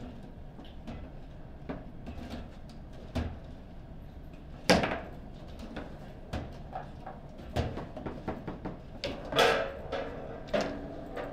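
Foosball table in play: irregular sharp knocks and clacks of the ball against the plastic figures and table, with rods and handles rattling. The loudest strike comes about halfway through, and a cluster of knocks comes near the end.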